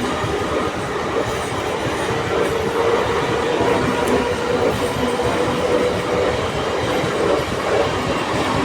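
Mumbai suburban electric local train running on the rails: a continuous rumble of wheels and carriages, with a steady humming tone through the middle.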